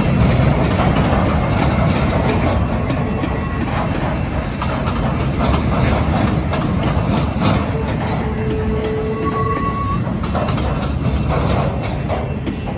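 Freight train's loaded TTX flatcars rolling past, wheels clicking and clanking over the rails, with a brief squealing tone about eight seconds in. The last car goes by near the end and the sound begins to drop away.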